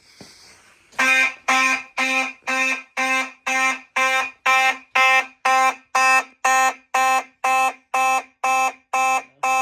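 Fire alarm horn sounding in an even on-off pattern, about two buzzy pulses a second, set off by a homemade relay-driven fire alarm panel during a system test. It starts about a second in.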